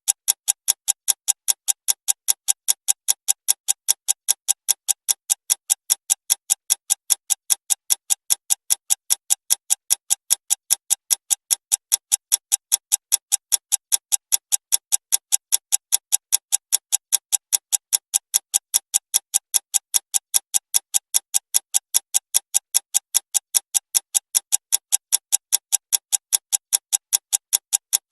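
Clock ticking fast and evenly, about three sharp ticks a second at a constant level.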